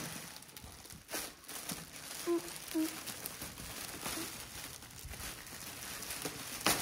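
Clear cellophane gift-basket wrap crinkling and rustling as it is torn and pulled open by hand, with sharper rips about a second in and near the end.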